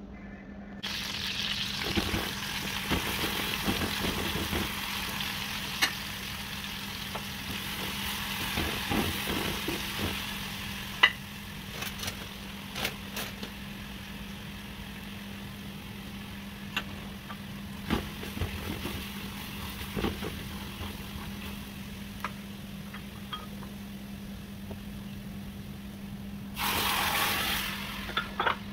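Chopped garlic sizzling in hot oil in an aluminium pot, with scattered sharp pops and clicks. Near the end, a louder hissing rush lasts about a second and a half as broth hits the hot pot.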